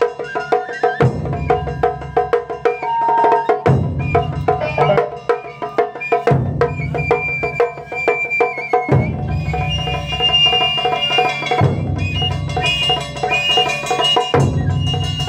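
Live Japanese taiko drum ensemble playing fast, dense rhythms with sharp wooden clacking strokes, a deep drum layer coming in and dropping out every two to three seconds, and a melody line with bending notes played over it.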